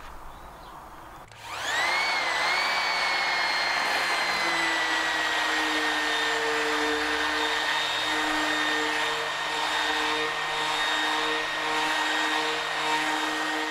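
Electric random orbital sander switched on about a second and a half in: its motor whine rises quickly, then settles into a steady run as it sands the worn varnish off a wooden tiller back towards bare wood.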